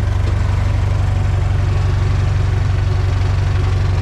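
Komatsu D31 bulldozer's diesel engine idling steadily just after starting, with an even low firing pulse.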